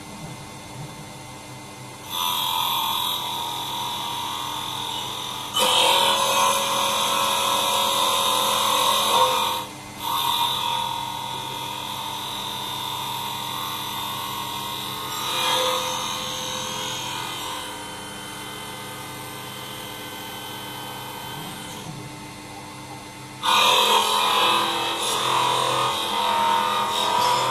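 Mini CNC wood lathe running: a steady motor hum under the rough scraping of the cutter taking shavings off the spinning wooden blank. The cutting noise comes in about two seconds in, grows louder for several seconds with a brief break, eases off, then comes back strong near the end.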